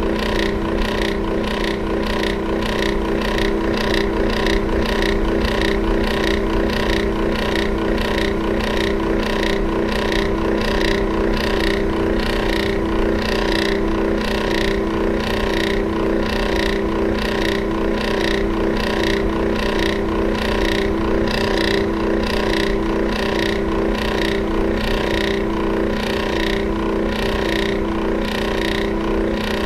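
Electric fan running: a steady motor hum with a regular tick about one and a half times a second.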